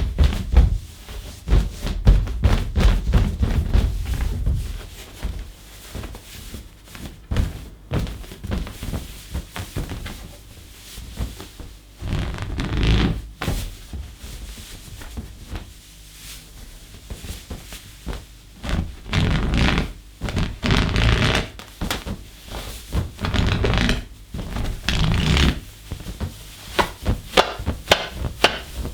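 Inflated latex balloon being handled with rubber-padded fursuit handpaws: low thuds as it is pressed and bumped, and bursts of rubbing against the rubber.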